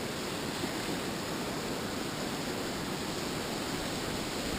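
Steady rushing of tidal water flooding in around a marsh, an even hiss-like wash with no single splash or break standing out.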